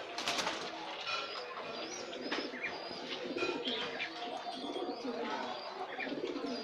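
Caged pigeons cooing in repeated low pulsing calls, mixed with high chirps and whistles from smaller caged birds. There is a short rustle near the start.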